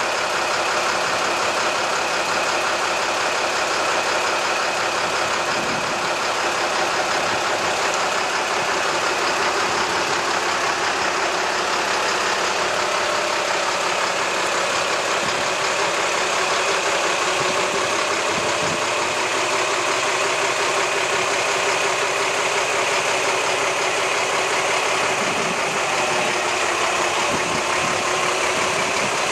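Scania fire engine's diesel engine idling steadily.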